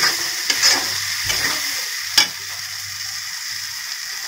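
Tomato and spice masala sizzling in hot oil in a kadhai while it is fried, stirred with a steel spatula that scrapes through it a few times and gives one sharp clack against the pan about two seconds in. After that the steady sizzle carries on alone.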